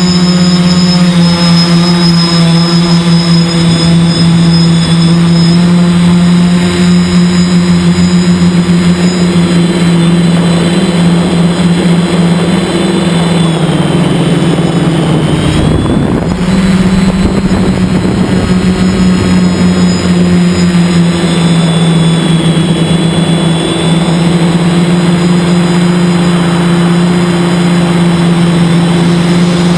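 Quadcopter's four Tiger Motor AT2216 1250kv brushless motors spinning 10x4.7 slowfly props, heard from the onboard camera as a loud, steady hum. About halfway the pitch sags for a couple of seconds with a rush of noise, then climbs back to a steady hum.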